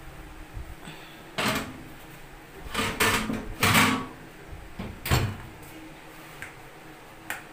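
Kitchen handling noises: a run of short knocks and scraping sounds, loudest in the middle, then a single click near the end.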